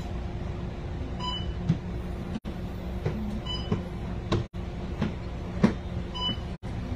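Inside a moving public bus: the engine's steady low hum with clicks and knocks of rattling fittings. A short electronic beep repeats about every two and a half seconds, and the sound cuts out for an instant about every two seconds.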